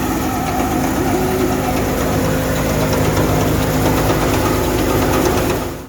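Engine-driven wheat threshing machine running steadily with a low, continuous engine hum.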